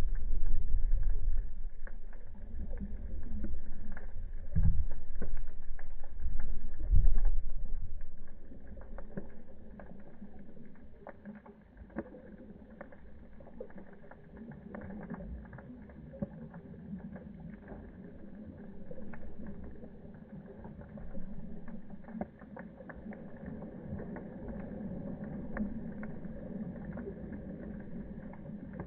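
Ocean swell surging over a reef, heard underwater through a camera housing: a muffled low rumble with a few heavy thumps, loudest over the first eight seconds, then quieter with scattered crackling clicks.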